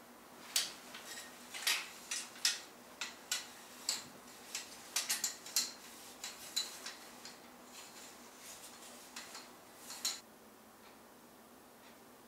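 Irregular light clicks and taps from a rod-type kimono hanger being handled as it is threaded through a kimono's sleeves and hung up; they stop about ten seconds in.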